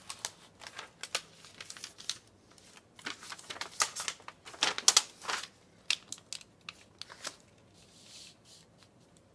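Paper rustling and a thin flattened aluminum can sheet crinkling as they are handled, with scattered small taps and clicks; the crinkling is loudest in the middle and eases off near the end.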